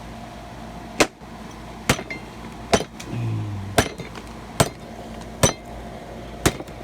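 A small axe hammering a metal post into the ground: seven sharp strikes, a little under one a second.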